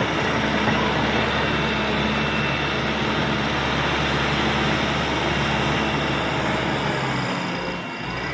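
Caterpillar D5K XL bulldozer's diesel engine running steadily, with a dense mechanical clatter over the engine note.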